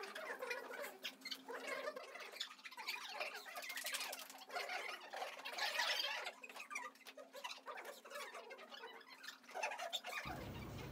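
Crinkling and rustling of a clear plastic film dressing and medical tape being peeled and pressed down to secure an IV catheter on a practice arm, with small irregular clicks and crackles over a faint steady room hum. Near the end it cuts to a lower, steadier hum.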